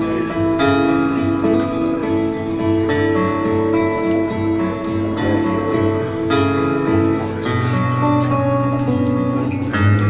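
Slow background music with held chords changing every second or so, without singing.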